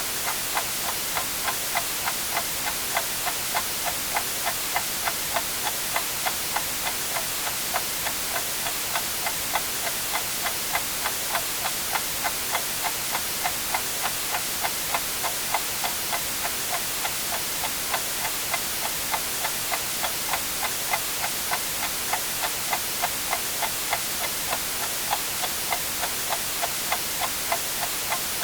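Clock ticking steadily, about two ticks a second, over a constant white-noise hiss.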